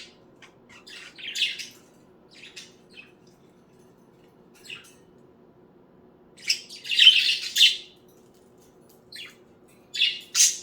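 Pet budgerigars chirping in short, scattered calls, with a louder burst of rapid calls lasting about a second and a half, starting about six and a half seconds in.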